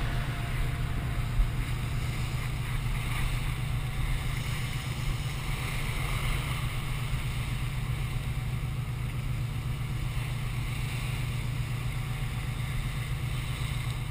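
Ship's engine running with a steady low drone, under the rush of wind and sea.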